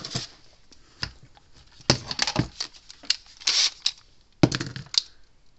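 Hand tools and small parts being picked up, set down and shuffled on a workbench: irregular clicks and knocks with a brief scrape, loudest as a quick cluster of knocks near the end.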